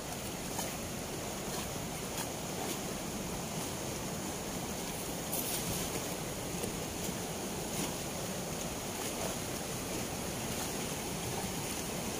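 Turbulent water rushing out of the open sluice gates of a weir, a steady, even rush with no let-up.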